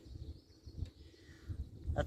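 Uneven low rumble of wind buffeting the microphone over faint outdoor background hiss, with no distinct event.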